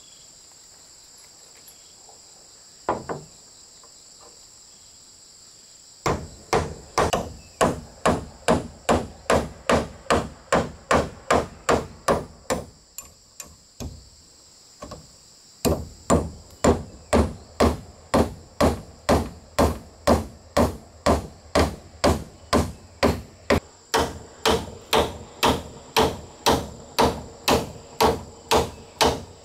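Steady hammering, a little over two blows a second, in two long runs with a short break near the middle. Crickets chirp steadily underneath.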